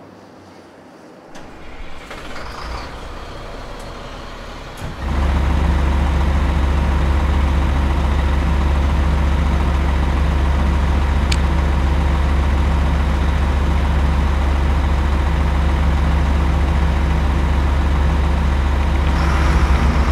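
Diesel truck engine running steadily at idle, a deep, even drone that cuts in suddenly about five seconds in and holds; the first few seconds are quieter, with light handling noise.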